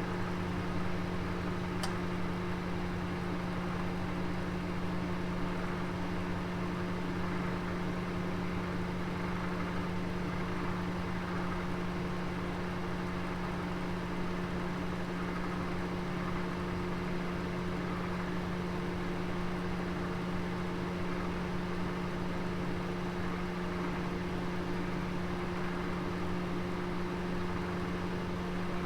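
Oven running with a steady low hum over an even hiss, with one faint tick about two seconds in.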